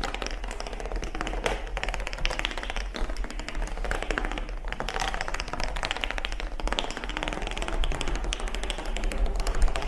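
A long chain of chocolate bars stood on end, toppling like dominoes: a rapid, unbroken run of light clicks and clacks.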